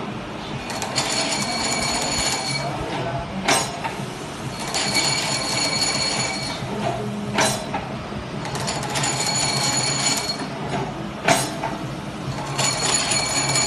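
Automatic heat-cutting machine for fabric strapping running its cycle: a high whine for about two seconds, then a single sharp clack, repeating about every four seconds, with three clacks over a steady low hum.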